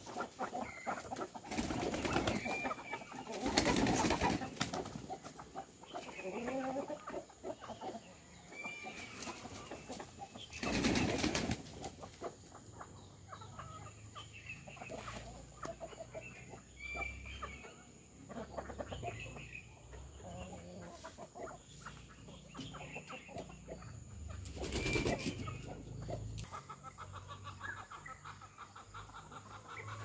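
Backyard ducks and chickens: wings flapping in loud bursts a few times, between scattered short high chirps and soft clucking from the flock.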